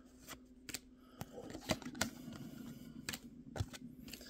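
A stack of baseball trading cards being flipped through by hand, each card slid off the front and tucked behind the rest: a string of short papery clicks and slides, several a second at times.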